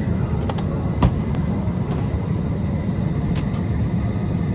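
Steady low rumble of a moving vehicle, with a few light clicks and a single knock about a second in.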